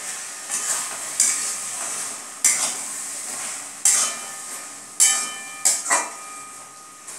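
Metal spatula stirring and scraping a thick bottle gourd and prawn curry in a metal kadai over a gas flame, in the final stir of the finished dish. It strikes the pan with a ringing clank every second or so, over a steady sizzle.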